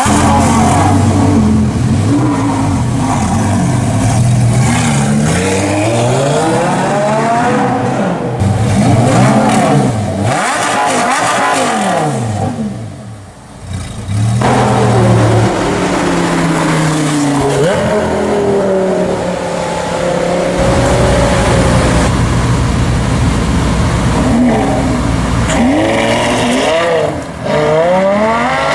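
Lamborghini Gallardo LP570-4 Performante's V10 revving and accelerating hard, its pitch sweeping up and falling back again and again, with a brief drop in level about halfway through.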